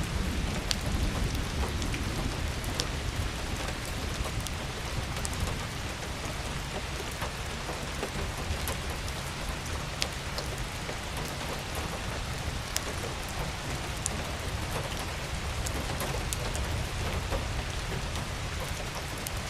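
Steady rainfall, with scattered sharp drop ticks over an even hiss and a low rumble underneath that is heaviest in the first few seconds.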